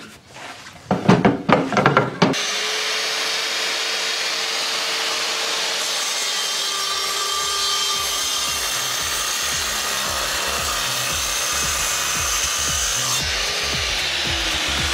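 Metabo KGS 216 M 1500-watt compound miter saw running and sawing through oak, a steady, loud whirring and cutting noise that comes in about two seconds in. Its motor hum sags slightly in pitch as the blade takes the cut.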